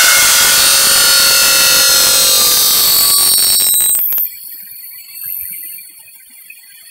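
Circular saw blade of an aluminium profile machining centre cutting through an aluminium profile: a loud, high screeching hiss with ringing tones. It cuts off abruptly about four seconds in, leaving a much quieter steady high whine.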